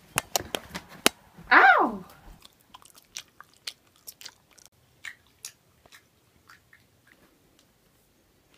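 A person chewing something crunchy, likely crisps. A quick run of sharp crunches gives way to fainter scattered ones, with a short falling squeal about a second and a half in.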